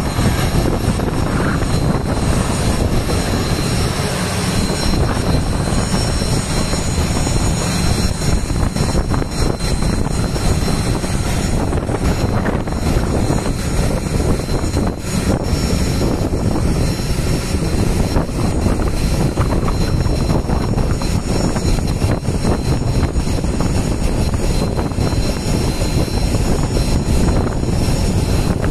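The Boeing 737's jet engines run steadily at taxi power: a continuous rumbling roar with thin, steady high-pitched whining tones on top.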